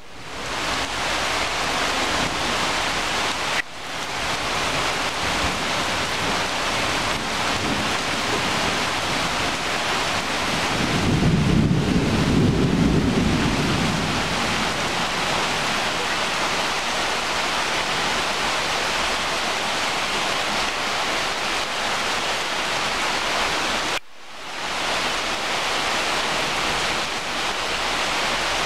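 Steady heavy rain pattering on leaves and ground. A low rumble swells and fades around the middle. The sound drops out briefly and fades back in twice.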